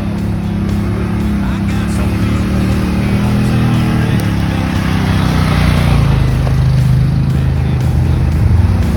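ATV engine running while riding, its pitch drifting up and down with the throttle.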